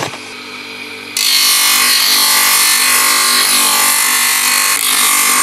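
Power grinder's abrasive wheel spinning with a steady motor hum. About a second in, a wooden golok sheath blank is pressed against the wheel and loud, steady grinding of the wood begins as the sheath is shaped.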